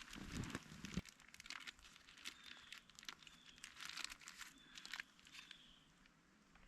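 Faint crunching and crinkling of footsteps through snow and brush, with small irregular clicks and snaps throughout and a sharper knock about a second in.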